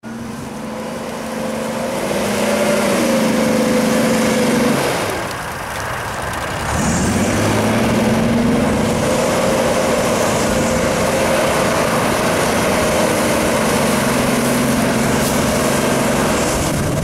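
Ford Explorer's engine revving hard as the SUV pushes through deep mud. The revs climb over the first couple of seconds and hold, drop back about five seconds in, then climb again about seven seconds in and stay high.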